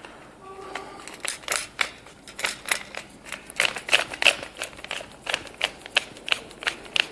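Metal tube sections of a home-made giant automatic centre punch being screwed together by hand: a run of irregular sharp clicks and taps, a few each second, starting about a second in.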